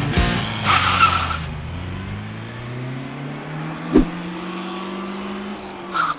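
Datsun Roadster's four-cylinder engine accelerating away, its note rising steadily in pitch, with a brief tyre chirp about a second in. A single sharp thud comes about four seconds in, and a few short clinks near the end.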